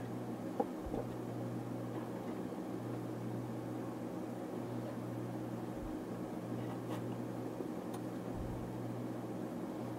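Steady low hum with a few faint, light clicks of bent stainless steel loops being handled and set against each other on a wooden workbench.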